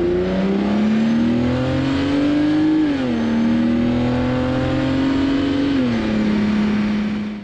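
BMW 325xi's 2.5-litre straight-six engine pulling hard under acceleration, heard from inside the cabin. It rises in pitch through the gears, with two upshifts where the pitch drops suddenly, about three seconds and about six seconds in.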